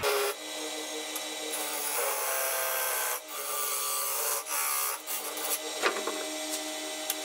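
Turning tool cutting into a wooden blank spinning on a lathe: a steady scraping hiss of the cut that drops out briefly twice as the tool eases off, then turns choppier with a few sharp ticks near the end.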